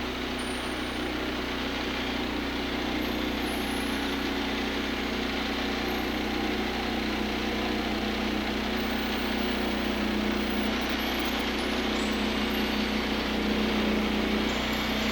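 Gas engine of a Woodland Mills bandsaw mill running steadily at a constant pitch, growing slightly louder toward the end.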